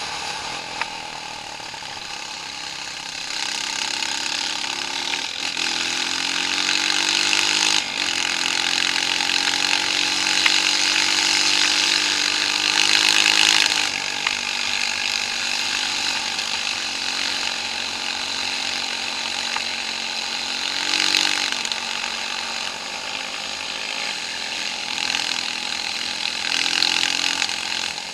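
Off-road vehicle engine pulling along a trail, its pitch climbing steadily for several seconds, then dropping sharply about fourteen seconds in and rising and falling a few more times, under a constant hiss of engine and trail noise.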